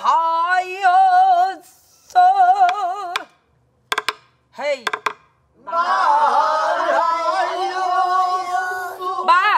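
Pansori singing with a wide, wavering vibrato. One woman sings a phrase, then after a short gap and a couple of sharp knocks, a group of voices sings the phrase back together, overlapping.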